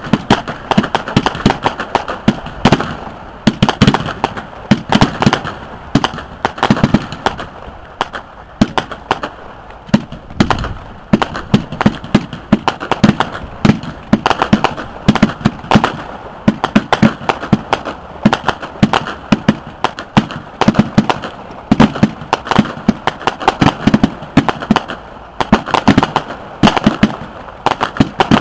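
Small fireworks display going off without a break: a rapid stream of bangs and crackling pops, several a second, as the bursts explode.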